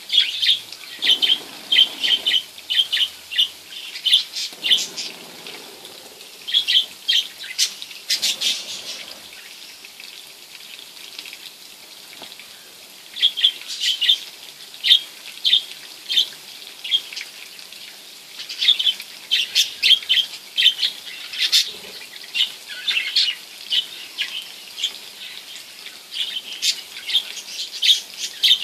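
Budgerigars chirping in many short, sharp calls that come in quick runs, with a lull about a third of the way through.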